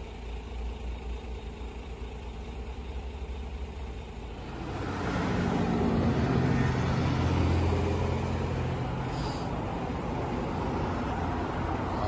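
A motor vehicle going past: a low rumble that swells from about four and a half seconds in into loud engine and road noise with a steady low hum, which stays up to the end.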